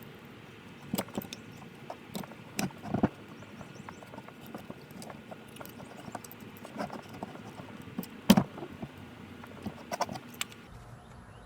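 Irregular metallic clicks and knocks of brake hardware being handled as pads, clips and pins are fitted into a four-piston brake caliper. The loudest knock comes about eight seconds in.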